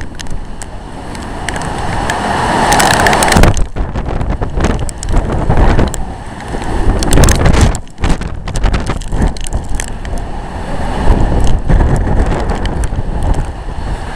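Microburst winds with driving rain, loud gusts swelling and falling in waves and blasting the microphone. One gust builds to a peak about three seconds in and drops off sharply, with another brief lull near the middle.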